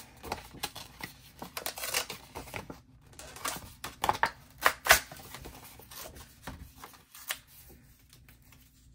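A sheet of double-sided patterned scrapbook paper torn by hand in a series of short, uneven rips and rustles. The rips are loudest in the first five seconds and fade to faint handling near the end.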